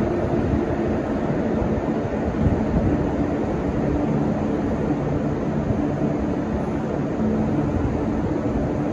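Taipei Metro C301 train running between stations, heard from inside the car: a steady rumble of wheels on the rails, with a low motor hum holding a few steady tones that shift now and then.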